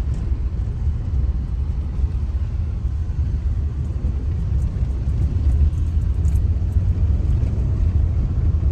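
Steady low rumble of a moving car, heard from inside the cabin: engine and road noise.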